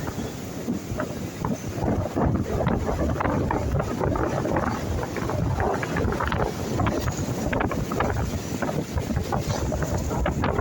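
Wind buffeting the microphone in uneven gusts, over the wash of ocean surf.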